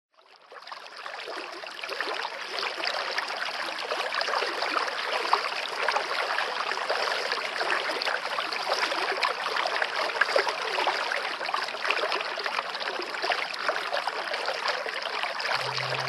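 Running water, like a small stream, babbling steadily. It fades in over the first couple of seconds.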